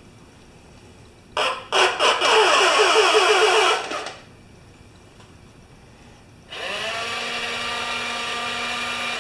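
Small electric motors in a scale robotic fire truck whirring in two runs. About a second and a half in, a few clicks lead into a loud, uneven whirr lasting about two and a half seconds. About six and a half seconds in, a steadier motor whine starts, quickly comes up to speed and runs on.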